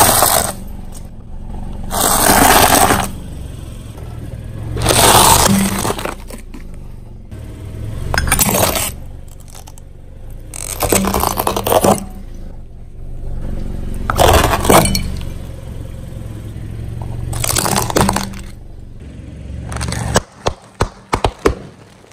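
A car tyre rolling over and crushing objects on concrete, such as a plastic snack bottle and toys: a crunching, cracking burst every three seconds or so over the car's engine running steadily. Near the end come several short, sharp cracks.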